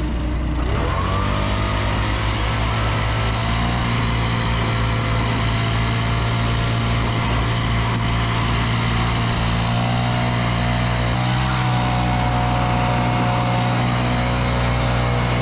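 Combine engine speeding up about a second in, then running steadily at high speed.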